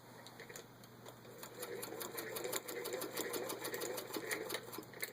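Hand-cranked 1929 Singer 206D zigzag sewing machine stitching in zigzag with the needle set to the left position, a rapid even clicking of the needle and feed mechanism. It starts slowly, picks up speed about a second and a half in, and stops abruptly at the end.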